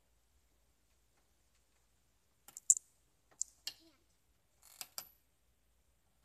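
Swing-set chains and hanger hooks clicking and clinking in short clusters about every second and a quarter, starting about two and a half seconds in, as a child swings back and forth; one cluster has a brief squeak.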